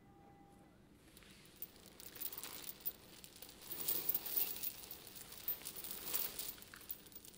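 Heavy steel chain wrapped around a body shifting and clinking against itself and the stage floor as the person rolls over: a faint rustling clatter of many small clicks, strongest about four and six seconds in.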